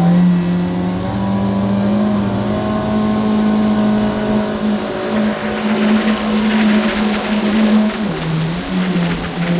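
Yamaha jet ski engine held at full throttle near 8,300 rpm, a steady high-pitched drone that dips slightly about eight seconds in.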